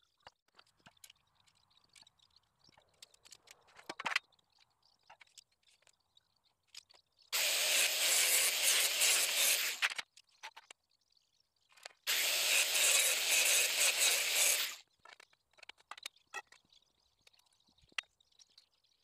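A power tool running in two bursts of about three seconds each, with light clicks and taps of handling in between.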